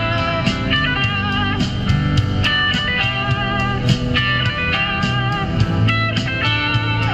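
Background music: a guitar-led blues-style instrumental with slide or bent guitar notes over a steady bass line.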